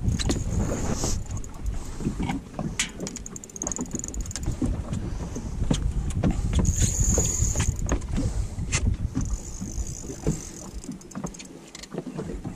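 Wind rumbling on the microphone over water slapping against the hull of a small fishing boat, with scattered sharp clicks and knocks and a few short high hisses.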